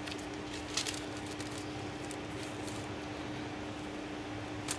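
Folded paper envelopes being handled and turned over: faint paper rustling, with brief crisp rustles about a second in and near the end, over a steady low hum.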